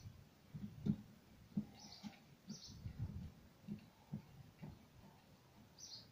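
Soft footsteps, about two a second, fading out after four or five seconds, while a small bird gives short high chirps, two about two seconds in and one near the end.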